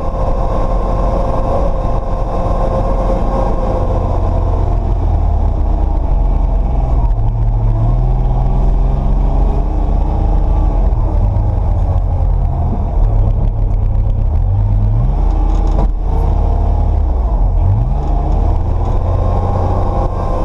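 Polaris Brutus HD UTV's three-cylinder Kubota diesel engine running while driving, heard from inside the cab. The engine speed dips and rises a few times, with two quick rises in pitch in the second half.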